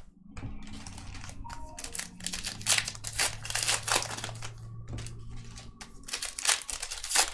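Foil trading card pack wrapper crinkling and rustling in irregular bursts as the pack is torn open and handled.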